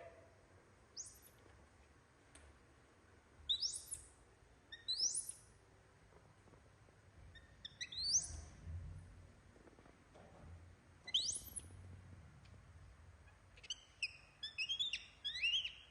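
Bird chirping: short, high-pitched calls that rise in pitch, coming one or two at a time every few seconds, then a quick run of them near the end.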